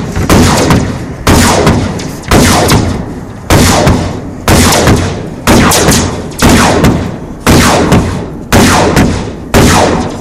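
Hammer blows on a sheet-metal seam, about one strike a second, each landing sharply and ringing out briefly: the seam is being knocked down by hand where the seaming machine left it unfinished.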